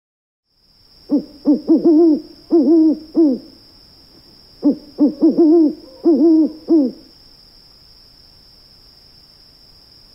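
Owl hooting: two quick runs of short, rising-and-falling hoots, about seven in each, with a pause of about a second and a half between them. A steady faint high whine sits behind.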